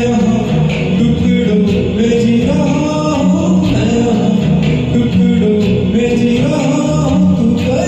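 Karaoke backing music for a Hindi film song playing steadily, with a singing voice over it.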